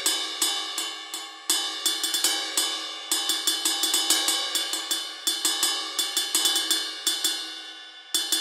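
Sampled ride cymbal bell hits from a drum sampler, played in a quick, even rhythm and ringing, each hit a little louder or softer than the last. The hits are triggered from the recorded ride through audio-to-MIDI with humanized velocities. Near the end the hits thin out and fade, then the pattern starts again.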